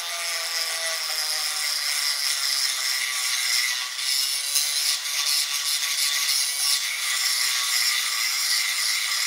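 INGCO mini die grinder at its lowest speed, its pink grinding-stone bit grinding the edge of a workpiece: a steady, high grinding hiss over the motor's whine. The whine drops a little in pitch over the first few seconds.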